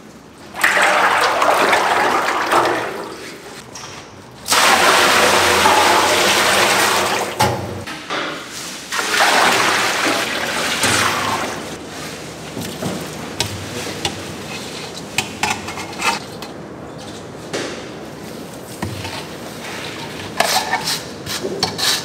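Water gushing and splashing in three loud surges of a few seconds each, then quieter, with scattered short clicks and knocks.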